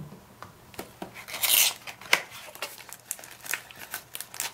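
Cardboard phone box and its paper inserts being handled: a knock right at the start, then irregular scraping and rustling of cardboard and paper, with a louder scrape about a second and a half in and scattered light taps.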